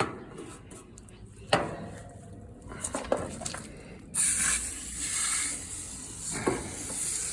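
Foaming coil cleaner hissing out of a spray nozzle onto the fins of an air conditioner's outdoor condenser coil. A steady spray begins about four seconds in, after a few sharp knocks from handling.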